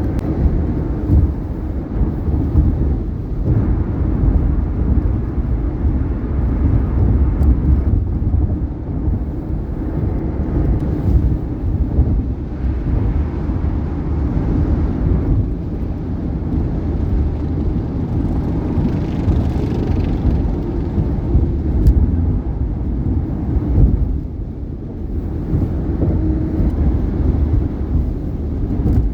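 Steady road and tyre noise from a 2018 Subaru Outback at highway speed, with a few sharp knocks as the tyres cross bridge expansion joints.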